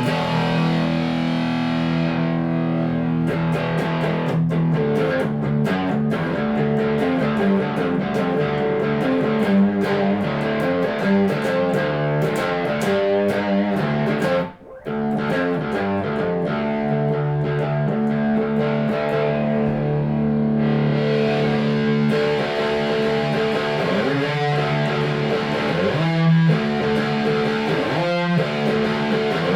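Electric guitar played through a Diezel VH4-2 distortion pedal: heavily distorted, sustained chords and riffs, with a short break about halfway and choppier chords near the end, picked up by a phone's microphone.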